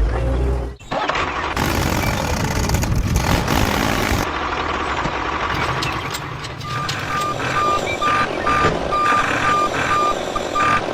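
Heavy vehicle engine running, with a brief break about a second in; from about two-thirds of the way through, a reversing alarm beeps over it, one steady tone about twice a second.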